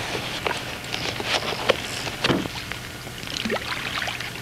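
Water sounds around a canoe in the rain: scattered drips and small plinks into the river over a steady light patter of raindrops on the water.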